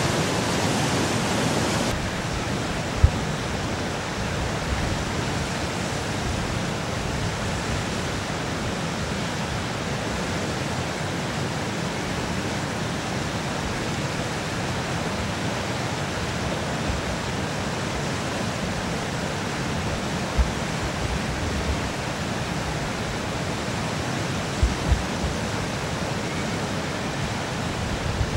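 River water pouring over a dam spillway and churning into whitewater below, a steady rushing noise. A few brief low bumps come through it, one about three seconds in and a couple more later on.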